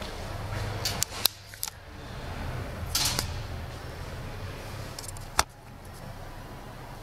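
Steady low hum with a few sharp metallic clicks and knocks: three in quick succession about a second in, a short clatter around three seconds, and a single loud click a little past five seconds.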